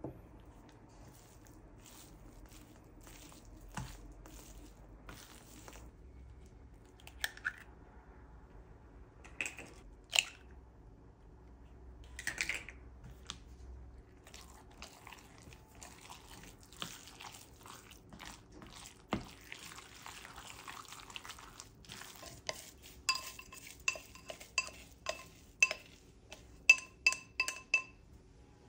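Kitchen dishes and utensils knocking and clinking: scattered light knocks at first, then a quick run of ringing clinks near the end, like a metal utensil striking a pot or bowl.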